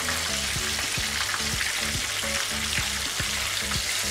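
Two whole flour-and-cornflour-coated sea bream deep-frying in hot oil, sizzling steadily with frequent small pops and crackles as the fish are turned over with tongs.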